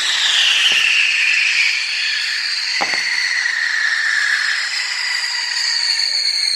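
Whistling fireworks rising together: several shrill whistles sound at once over a loud hiss, one sliding down in pitch in the first second or so. Sharp pops come twice as more of them launch.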